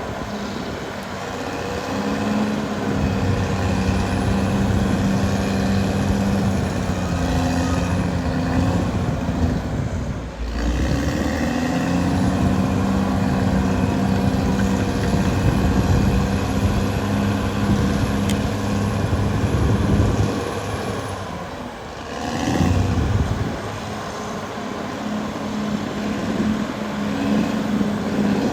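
Caterpillar D6R XL bulldozer's diesel engine working under changing load, pulling harder about two seconds in, easing off briefly partway through, and settling lower after a short surge near the end.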